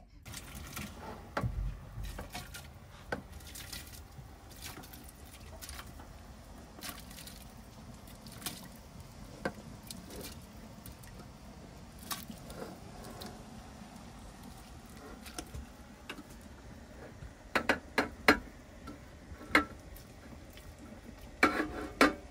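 Scattered knocks and clicks over a low steady background, with a few loud clusters of sharp clicks about two-thirds of the way through and again near the end.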